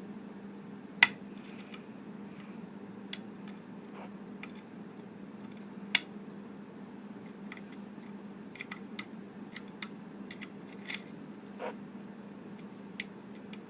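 Small metallic clicks of a hook pick and tension wrench working the pins of a pin-tumbler lock while it is being picked. There is a sharper click about a second in and another near six seconds, then a run of lighter clicks, over a low steady hum.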